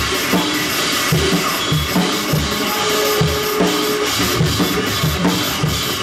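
Screamo band playing live and loud: an acoustic drum kit with steady kick-drum hits, a few a second, under cymbal wash and a dense wall of guitar.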